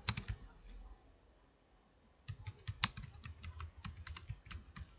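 Typing on a computer keyboard: a few keystrokes, a quiet pause of about two seconds, then a quick run of keystrokes.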